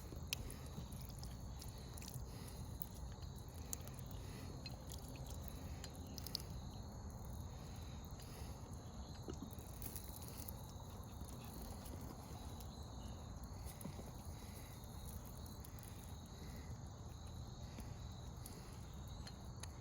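Quiet, steady outdoor background noise with a low rumble, faint steady high tones, and a few faint clicks.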